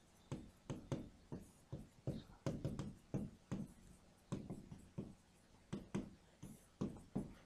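Marker pen writing on a whiteboard: an uneven run of short, faint taps and scrapes as the tip strokes out letters.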